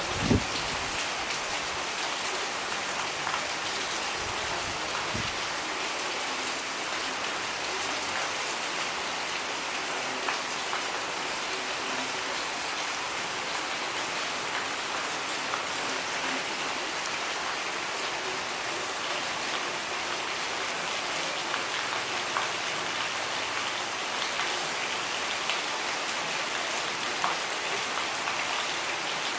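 Steady rain falling, an even hiss scattered with small drop ticks, and a dull low thump just after the start.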